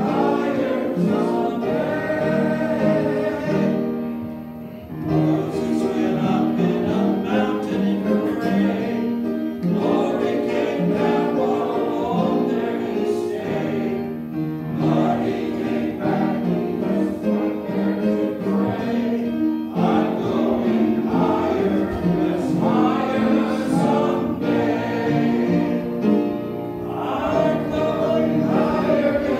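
Church congregation singing a hymn together, many voices sustaining the melody line by line, with a brief pause between phrases about four seconds in.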